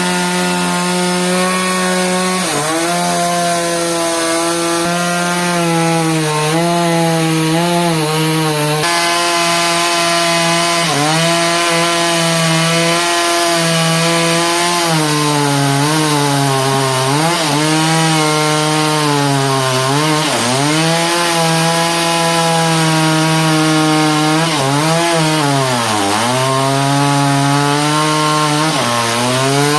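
Engine-driven saw running at high revs while cutting through a big log, the engine note dipping sharply and recovering again and again as it bogs under load in the cut.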